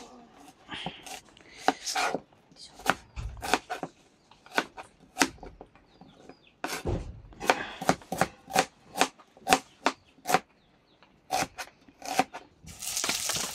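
Knife chopping food on a cutting board: a string of separate, sharp chops with short pauses, coming about twice a second in the middle stretch. A steady rushing noise starts near the end.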